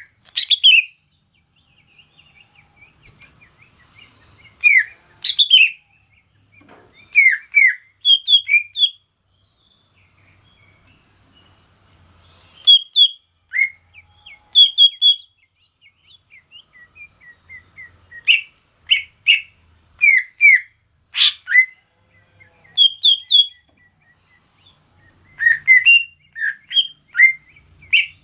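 Green leafbird (cucak ijo) singing: clusters of short, quick whistled notes that sweep up and down, coming every second or two with brief pauses, over a steady high hiss.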